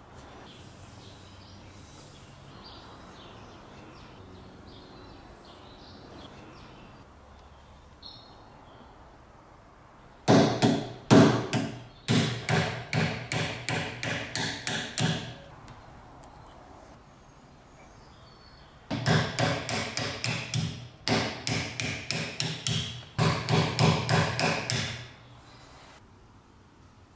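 Hammer blows struck in quick succession, about four a second, in two runs: one starting about ten seconds in and lasting some five seconds, the other starting a few seconds later and lasting about six.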